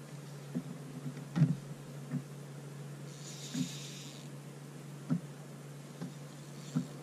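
Irregular muffled knocks and thumps in a small folding boat, the loudest about one and a half seconds in, over a steady low hum. A short hiss about three seconds in.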